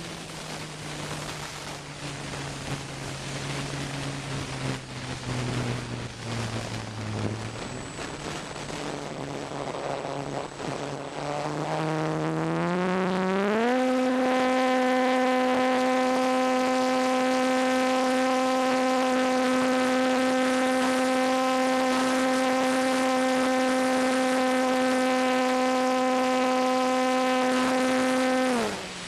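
Parkzone T-28 RC plane's electric motor and propeller, heard up close from the onboard camera with wind rushing over the microphone. For the first dozen seconds it runs as a low hum that slowly sinks in pitch. It then speeds up quickly into a steady, higher-pitched whine that holds for about fifteen seconds and drops away suddenly near the end.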